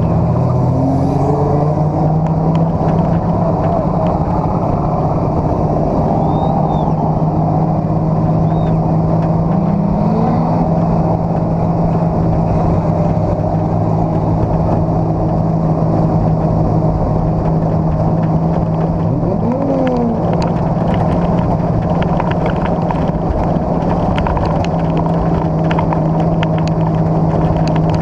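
Dirt-track race car's engine running loud and steady at a near-constant pitch, heard from inside the cockpit, with a few faint rising whines of other cars going by.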